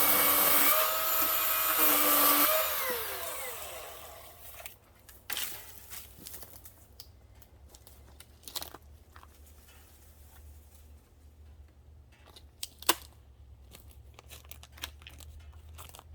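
Milwaukee M18 battery chainsaw's electric motor running with a steady whine, then spinning down with a falling pitch about two and a half seconds in once the trigger is let go. After it, scattered crunches and snaps of wood and debris.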